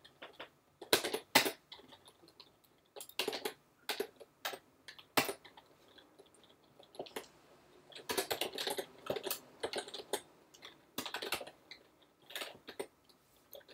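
Typing on a computer keyboard: several short bursts of keystrokes with pauses between them.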